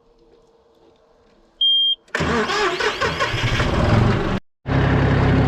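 A short high beep, then a tractor engine starts and runs. It cuts out for a moment, then comes back running steadily.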